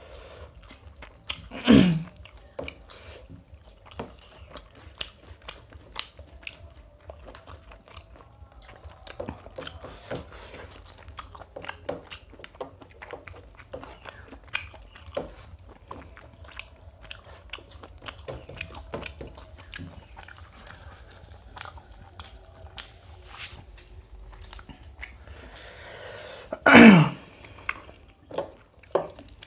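Close-up chewing and mouth sounds of people eating mutton biryani with their hands: soft crunches, smacks and small clicks throughout, with two brief louder sounds, about two seconds in and near the end.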